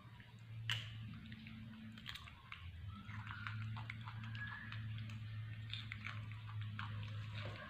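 Baby macaque biting and chewing a piece of watermelon, with irregular wet smacking clicks, over a steady low hum.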